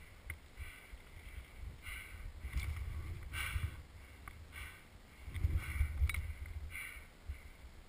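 Footsteps crunching through snow, about one to two steps a second, over a low wind rumble on the GoPro's microphone.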